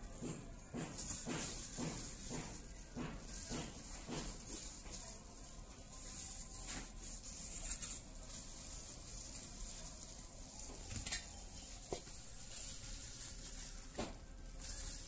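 Banana leaves and a thin plastic glove rustling and crinkling as hands fold the leaf wrappers and press dough onto them. There are quick repeated rustles in the first few seconds, then sparser ones.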